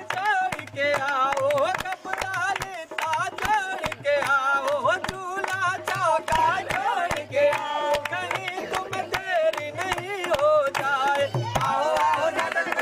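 A lead voice singing an ornamented folk-style song, with a group clapping in time over a low drum beat.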